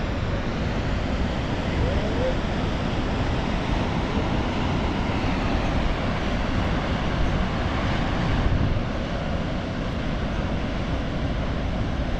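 Steady, dense roar of Niagara Falls' falling water, even and unbroken.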